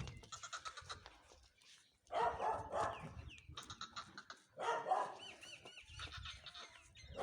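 Animal calls: two loud drawn-out calls about two and five seconds in, with fainter ones between, and small bird chirps over them.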